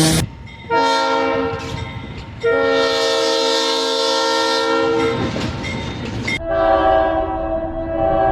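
Locomotive air horn sounding its chord in blasts: a short blast about a second in, a longer one from about two and a half seconds, then a horn with a different chord starting about six and a half seconds in and holding.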